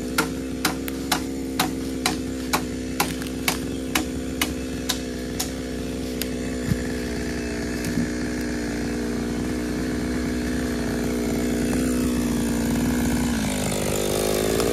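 Stihl MS 440 two-stroke chainsaw running steadily, its pitch dipping and then rising near the end as the throttle changes. A string of sharp clicks, about two a second, sounds over the first five seconds or so.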